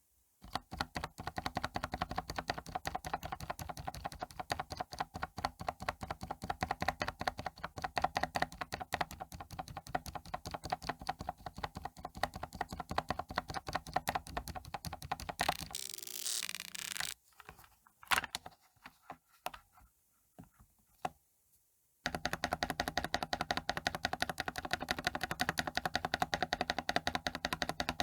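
Spacebar of an Epomaker GK96S mechanical keyboard with Krytox-lubed switches and spacer mods, pressed over and over in quick succession. Just past the middle the clicking breaks off for a short rushing noise and a few single clicks, then a brief pause, and the rapid presses start again.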